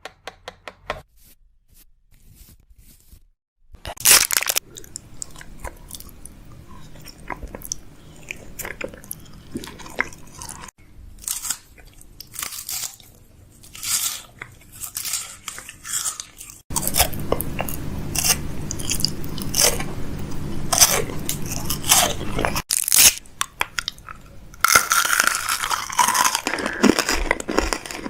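Close-miked ASMR mouth sounds: crunching and chewing with many sharp crackling clicks, in several segments that change abruptly.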